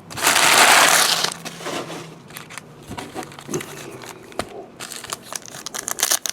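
Plastic wrapper of a trading card pack crinkling loudly for about a second as it is handled, then lighter crinkles and clicks.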